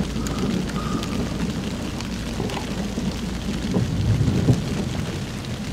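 Distant thunder from an intense thunderstorm rumbling on and on, swelling about four seconds in, under a steady hiss of rain.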